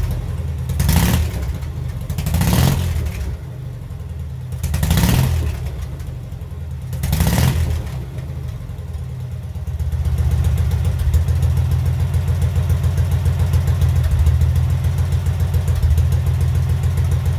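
Freshly rebuilt K-750 side-valve flat-twin motorcycle engine running on a stand, revved four times with the twist grip over the first eight seconds, then running steadily and a little louder from about ten seconds in.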